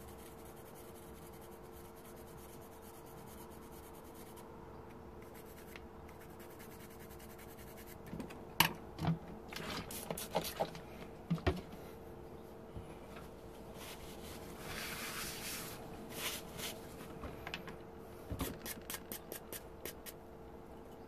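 Hands handling tools and small parts on a wooden workbench over a faint steady hum. About eight seconds in come scattered sharp clicks and knocks, then a stretch of rubbing, and near the end a quick run of light ticks.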